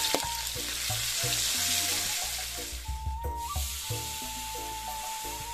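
Balado chili paste sizzling and frying in a wok as it is stirred with a metal spatula; the sizzle fades about halfway through. Background music plays throughout.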